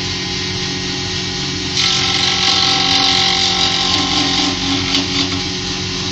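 Homemade jointer with a pressure roller running steadily; from about two seconds in the cutterhead planes a long board fed across it, adding a louder noise of the knives cutting wood over the motor's hum.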